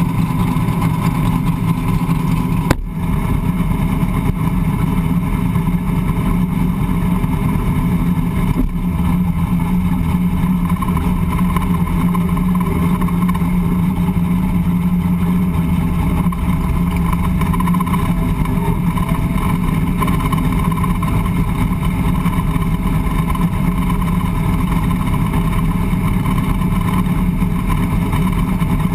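Drag race car's engine idling steadily, heard from inside the cockpit, with no revving. A single sharp click sounds about three seconds in.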